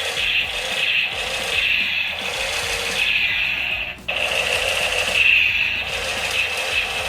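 Toy gun firing: a continuous rapid mechanical rattle and buzz that cuts off for a split second about four seconds in, then starts again.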